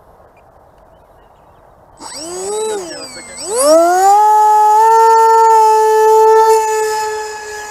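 Electric motor and propeller of a Roc Hobby Swift foam delta-wing RC plane spinning up. A whine starts about two seconds in, rises and dips, then climbs to a steady high-pitched whine at full throttle, and cuts off at the end.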